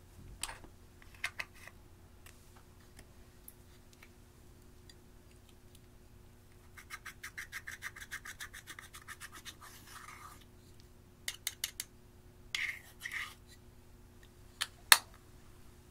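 Pointed metal tool scraping and crumbling a pressed eyeshadow in its compact pan: a run of fast, even scratching strokes, about eight a second, lasting about three seconds. Later come a few sharp clicks and two short scratches, with the loudest click near the end.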